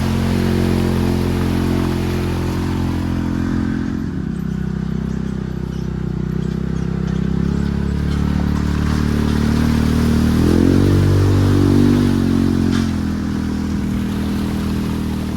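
Ranger utility vehicle's engine running under load while driving through mud, revving up briefly about ten seconds in and then easing back, with rattling from the vehicle.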